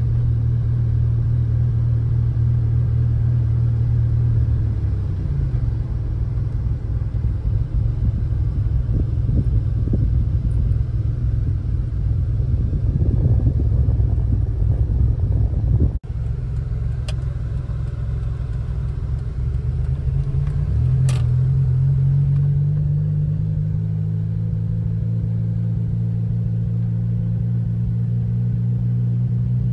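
Car engine running while driving, heard from inside the cabin: a steady hum whose pitch drops about five seconds in and climbs again about two-thirds of the way through. There is a rougher stretch in the middle, a brief break, and two short clicks later on.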